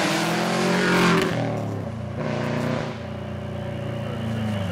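Subaru Impreza rally car's flat-four engine revving hard as the car passes at speed on a gravel stage. It is loudest about a second in, then falls away as the car drives off.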